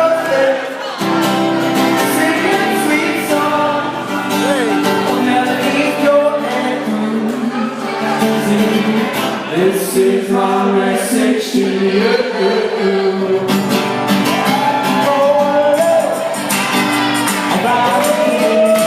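Live band music with singing and guitar.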